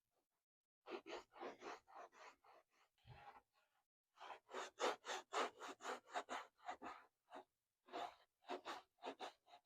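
Quick back-and-forth scrubbing strokes by hand on a car's painted body panel, about four or five a second, in three runs with short pauses.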